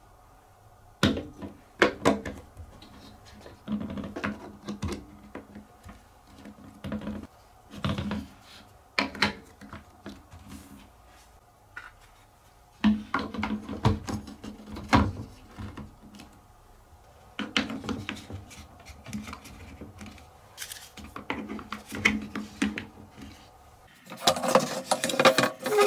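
Wooden and plastic Trix Track marble-run parts knocking and clacking in short bouts of a second or two, with a low rolling hum between the knocks, and a denser clatter near the end.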